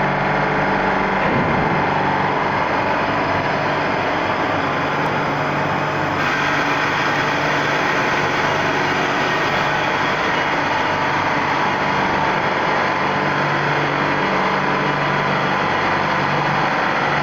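Tube ice machine running: a loud, steady machinery drone with a constant hum.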